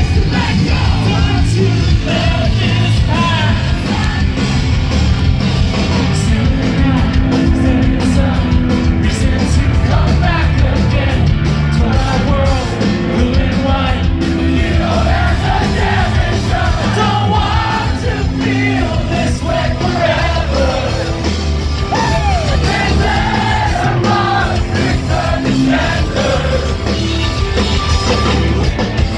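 Post-hardcore band playing live at full volume: electric guitars, bass and drums, with voices singing and yelling over the music.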